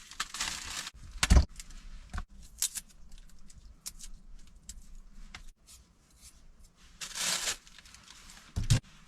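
Green onions being torn and stripped by hand: tearing and rustling with scattered small clicks, a sharp knock about a second and a half in and another near the end.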